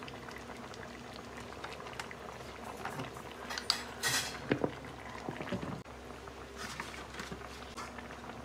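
Pork sinigang broth simmering and bubbling in a stainless steel wok full of vegetables, with scattered small clicks. About four seconds in, a few louder knocks and a brief rustle.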